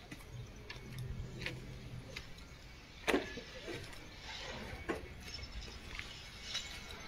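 Faint outdoor yard background: a low steady hum for the first two seconds or so, with scattered light clicks and knocks, the sharpest about three seconds in.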